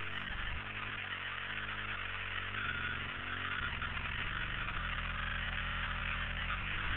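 Steady electronic drone from the installation's sound design: a low buzzing rumble that shifts in steps, under an even hiss.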